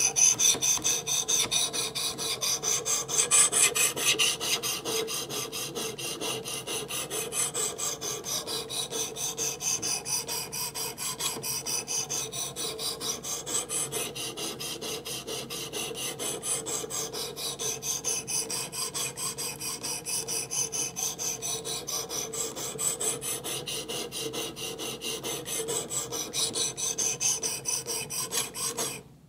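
Knife edge being sharpened on a Work Sharp Professional Precision Adjust: the 320-grit abrasive on its swing arm stroked quickly up and down along the blade clamped in its vise, a steady, rhythmic rasping scrape. This coarse pass shapes the bevel on the second side, pushing the burr back over the edge. The strokes stop abruptly just before the end.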